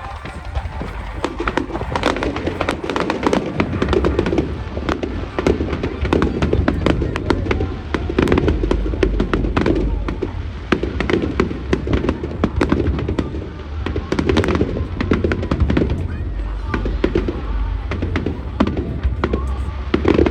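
Aerial fireworks going off in a display: many sharp bangs and crackles in quick succession, with music playing underneath.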